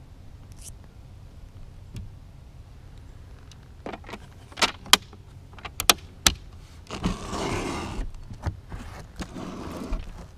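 Handling of wooden display cases: several sharp clicks and knocks about halfway through, then a scraping sound lasting about a second and a fainter one near the end.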